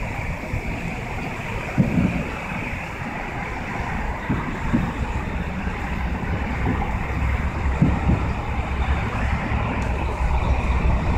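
Steady rumble of wind on the microphone and city traffic, with a few dull low booms from distant fireworks about two, four and a half, and eight seconds in.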